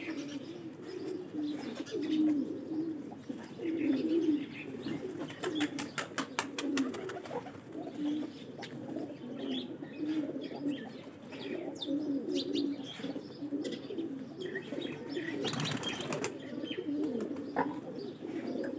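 A flock of domestic pigeons cooing without a break, many low warbling coos overlapping. A quick run of clicks comes about six seconds in, and a short burst of wing flapping comes near the end.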